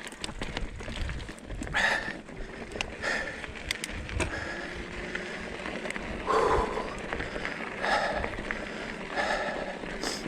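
Hardtail electric mountain bike riding over a rocky trail: tyres crunching and the bike rattling, with several short noisy surges and a rumble of wind on the microphone.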